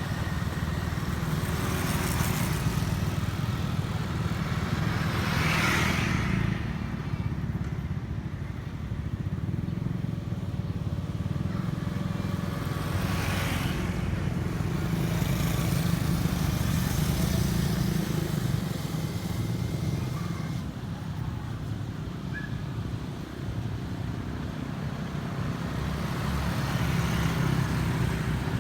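Road traffic: a steady engine rumble, with vehicles such as motorcycles passing by four times, each pass a rise and fall of hiss.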